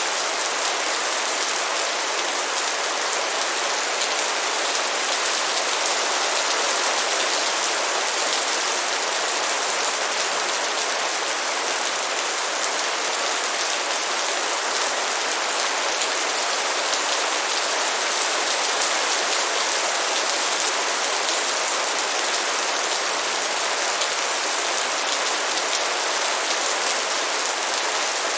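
Light rain falling steadily: an even patter of many small drops.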